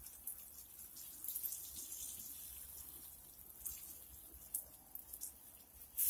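Fine streams of water sprinkling onto wet, muddy soil: a soft, steady hiss and patter with small splashy ticks.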